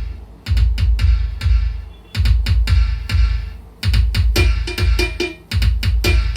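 Bass-heavy instrumental music with a deep, recurring bass drum beat and sharp percussion strikes, played back through a 4.1 home amplifier and its speakers.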